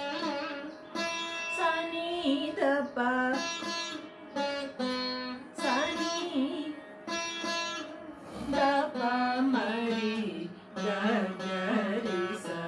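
Saraswati veena played as a run of plucked notes with sliding, wavering pitch bends (gamakas), going through the scale of Darbaru raga, with a woman singing the note syllables along with it.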